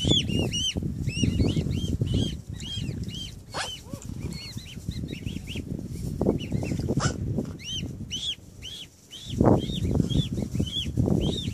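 Newly hatched swan cygnets peeping: a rapid, steady series of short high-pitched peeps, a few a second. Underneath runs a low, uneven rumbling noise that swells about nine and a half seconds in.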